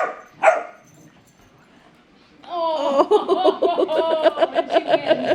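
Dogs barking in play: two short barks at the start. After a pause of about two seconds comes a long run of rapid, pulsing vocal sounds, about five a second.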